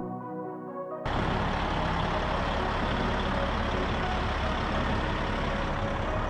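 Background music cuts off about a second in, giving way to a Peterbilt 379 semi-truck's diesel engine idling steadily with a deep rumble.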